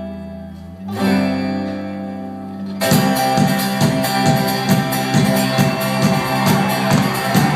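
Live folk-rock band playing an instrumental passage: held acoustic guitar chords ring out, and about three seconds in the full band comes in louder with a fast, driving strummed rhythm.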